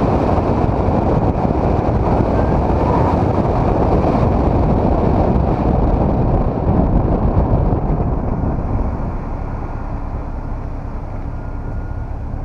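Turbocharged Mazda MX-5 driving at speed, heard through a camera mounted low on its flank, with heavy wind noise on the microphone. The noise eases about eight seconds in as the car slows.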